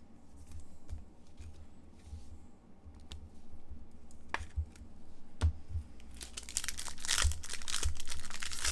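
Trading cards being handled, with a few light clicks and soft knocks. From about six seconds in, a hockey card pack's wrapper crinkles and tears as it is opened.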